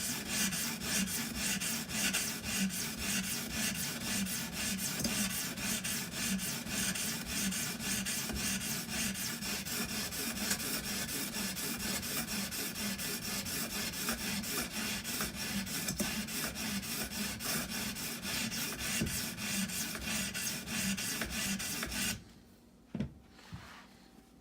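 Wet sharpening stone of an Edge Pro Apex stroked rapidly back and forth along a small hunting knife's steel edge, a steady rasping scrape grinding the bevel at a slightly raised angle. The strokes stop about two seconds before the end, and a single click follows.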